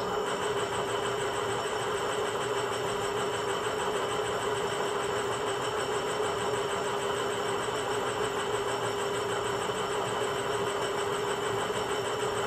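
Recorded sound of an Indian Railways WDG4 diesel locomotive played by the LokSound 5 decoder in an HO scale model: the engine idling with the air compressor running, switched on by the horn having been blown. The sound is steady throughout.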